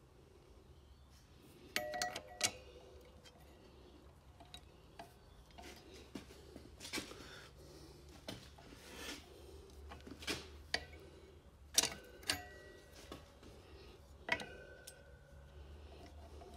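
Hand-handling noises from fitting a metal ear clamp onto a rubber coolant hose: scattered small metallic clicks and clinks, a few louder ones ringing briefly, with some soft rustling between them.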